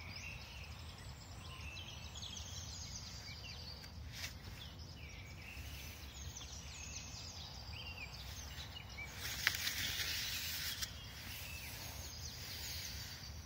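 Small birds chirping and singing at dawn, many short calls over a low steady rumble. A brief rustle comes about nine to eleven seconds in and is the loudest sound.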